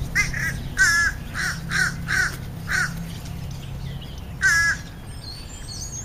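American crow cawing: a quick run of six harsh caws, then one more after a short pause. These are calls the uploader takes as a sign that there is a lot of food around.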